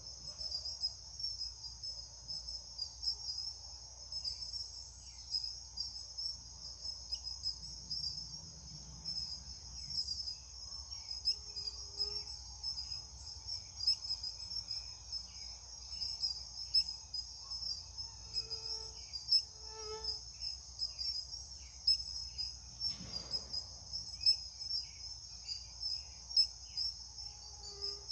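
A steady, high-pitched chorus of insects, typical of crickets, shrilling without a break.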